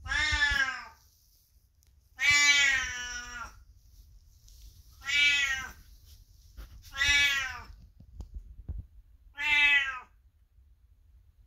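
A very old cat, 22 years old, meowing loudly five times. The calls come roughly two seconds apart, each under about a second long, the second one the longest. It is a greeting call to a person passing by.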